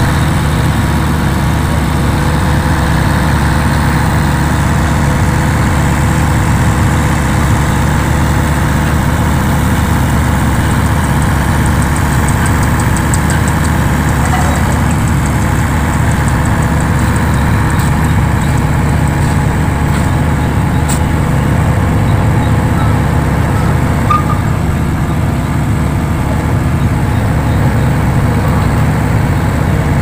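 Heavy diesel engine idling steadily, a constant low hum that neither rises nor falls.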